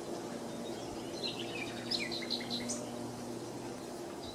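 Small birds chirping in short, quick calls over a faint, steady low drone: a quiet nature-ambience intro.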